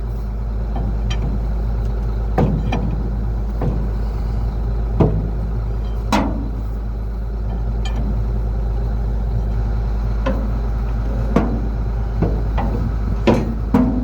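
Tractor engine running steadily while pulling a big square baler, with a sharp clunk from the baler every second or so.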